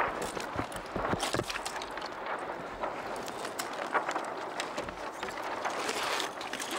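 Wind noise on the microphone and water washing against a kayak's hull, with several sharp knocks, the loudest about four seconds in.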